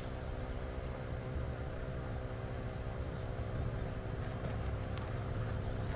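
Viair 400P portable 12-volt air compressor running steadily while inflating a tire, a constant motor hum.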